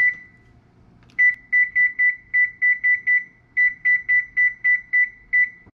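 Whirlpool oven control panel beeping as its touchpad keys are pressed. There is a single beep for the Bake key, then a quick run of short high beeps, about four a second with a brief pause midway, as the temperature is stepped up for preheating.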